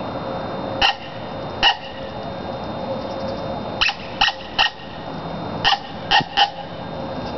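Cow horn coyote howler blown in short, sharp coyote barks: eight barks in groups of two, three and three, over a steady background hiss.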